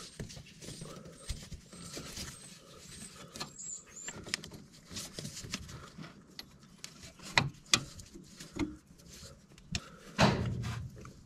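Scattered light clicks, knocks and scrapes of a wrench and metal hose fittings being handled, with a sharper knock about seven and a half seconds in and a longer, louder scuffing sound about ten seconds in.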